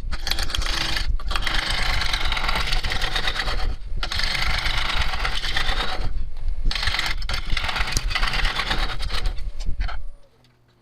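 Bowl gouge cutting into a walnut wedge spinning on a wood lathe: a loud, rough scraping with brief pauses about a second, four and six seconds in, stopping near the end.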